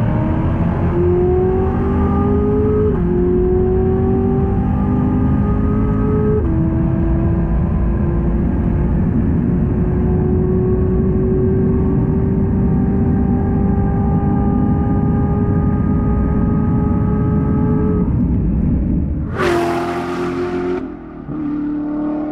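2019 Chevrolet Corvette ZR1's supercharged 6.2-litre V8 at full-throttle acceleration, heard from inside the cabin. The engine note climbs, drops with two quick upshifts in the first seven seconds, then climbs slowly in a high gear. Near the end a sudden loud rush of the car passing close by takes over, followed by the engine note again.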